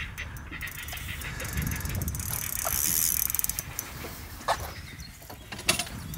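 Fishing reel clicking rapidly while a hooked fish is fought on a spinning rod, the ticking rising to a dense high buzz about two to three seconds in. A couple of sharp knocks follow in the last two seconds.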